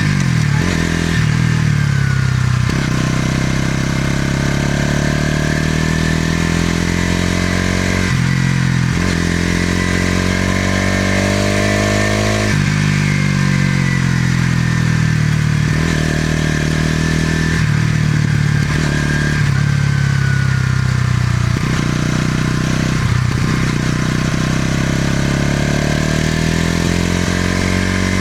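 Bajaj Pulsar NS200's single-cylinder engine and exhaust on a ride. The engine climbs in pitch through the gears with brief dips at each shift, falls away as the bike slows, then pulls up through the gears again.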